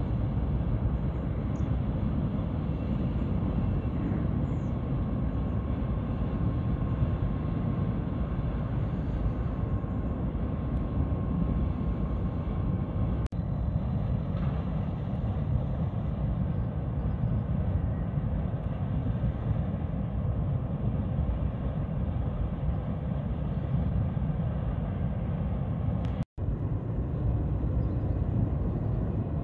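Steady low rumble of distant ship and port machinery, with a faint steady whine for several seconds early on. The sound breaks off for an instant about a second before the end.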